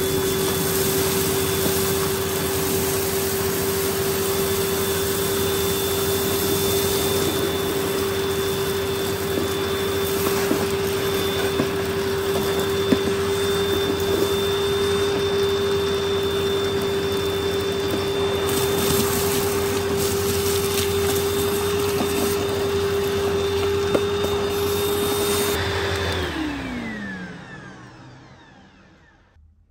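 Upright bagless vacuum cleaner running with a steady motor whine while its hose tool sucks up crushed cornflakes, with a few sharp ticks as pieces go up the hose. Near the end it is switched off and the motor winds down, its pitch falling away.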